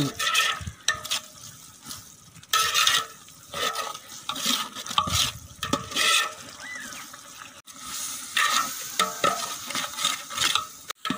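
Long metal spoon stirring thick biriyani masala in a large metal pot, scraping against the pot's sides and bottom in repeated, irregular strokes, with a short pause a little past halfway.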